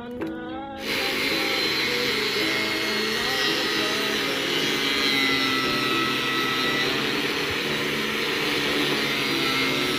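Guitar music breaks off about a second in. An electric angle grinder then comes in abruptly and runs steadily, its disc grinding into a block of coconut palm wood, with a steady high whine over the noise of the cut.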